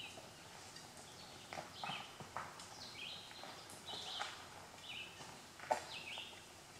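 Woodland songbirds singing in short chirpy phrases, over scattered crunches and knocks of loose rock on the trail; one sharp knock stands out near the end.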